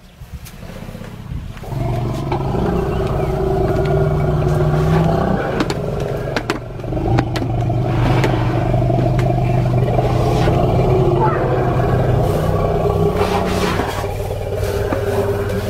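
Safari jeep's engine running and revved hard in steps, its pitch rising and settling several times, with scattered knocks and clatter, as the engine is used to push back a herd of Asian elephants crowding the vehicle.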